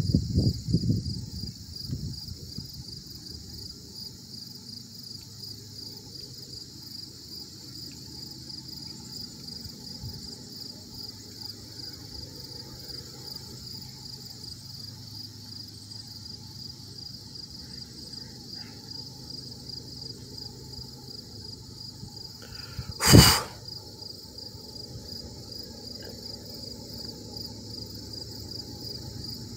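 Steady insect chorus with a fast, even pulsing, high-pitched. About 23 seconds in there is one brief loud thump.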